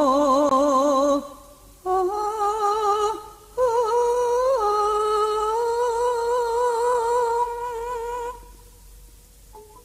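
A female sinden-style voice singing long held notes with vibrato in a Banyumasan calung song, in three phrases, the last held for about five seconds; it drops away near the end.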